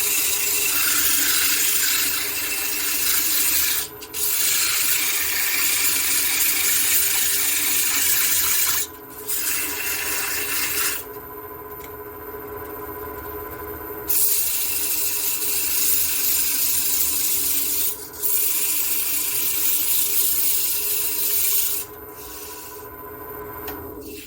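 Sandpaper hissing against Western cedar spinning on a wood lathe, lifted off for a moment several times, with a softer stretch about halfway through. The lathe's motor hums steadily underneath.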